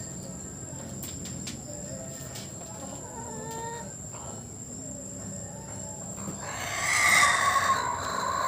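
Rooster crowing once, loud and drawn out, starting about six and a half seconds in, after a few soft, low calls from the chickens.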